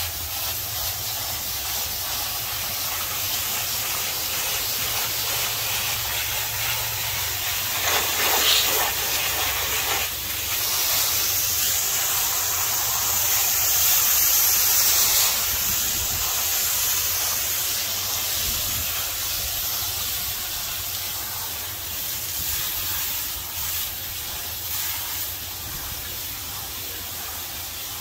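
Water from a hose spray wand hissing steadily as it is sprayed through a dirty air-conditioner condenser coil from the inside, washing the built-up dirt out through the fins. The spray grows louder and harsher for a few seconds around the middle.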